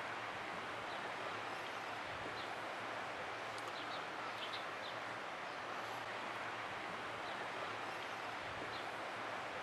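Steady outdoor ambience: an even hiss of open air over the water, with faint short bird chirps now and then.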